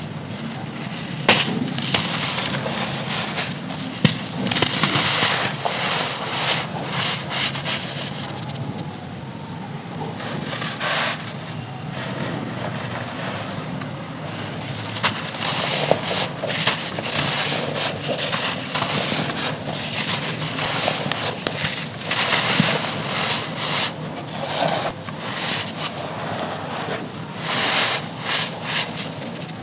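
Dry chunks of red dirt being crumbled, a continuous dense crunching and crackling with many sharp little snaps, uneven in loudness.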